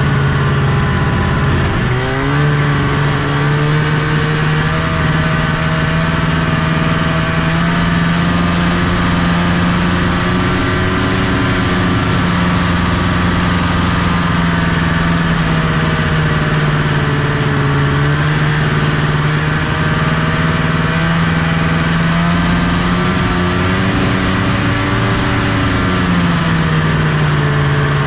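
1974 Arctic Cat Cheetah 340 snowmobile's Kawasaki 340 two-stroke engine running steadily under load while breaking trail through snow. Its pitch rises about two seconds in, holds, then dips briefly near the end before picking up again.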